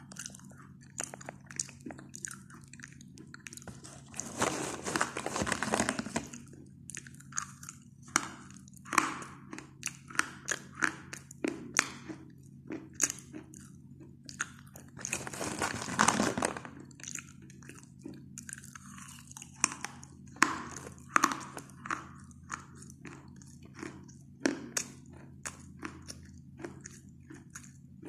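A person biting and chewing pieces of coloured chalk close to the microphone: many sharp, dry crunches, with two longer stretches of dense grinding crunch, one about four seconds in and one about fifteen seconds in. A faint steady hum runs underneath.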